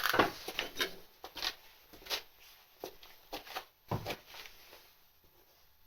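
A series of light knocks and clatters, roughly one every half second to second, fading out after about four seconds.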